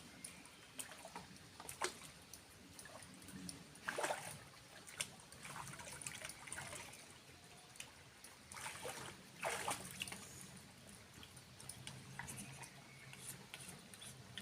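Water trickling and splashing irregularly, with louder splashes about four seconds in and again near ten seconds.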